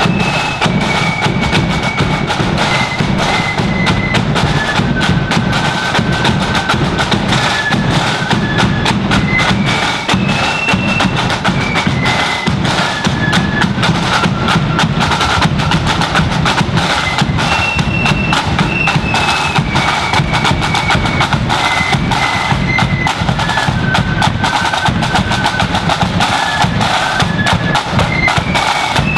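Marching flute band playing a tune: flutes carry a high melody over busy snare drumming with rolls and a steady bass drum beat. The same phrase of the tune starts over a little past halfway through.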